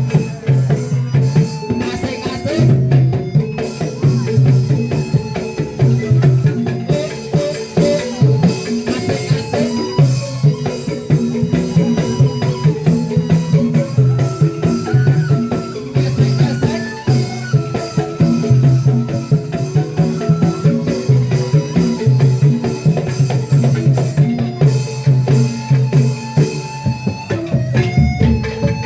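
Instrumental band music: drums with a steady, busy beat under repeating bass notes and a plucked-string melody.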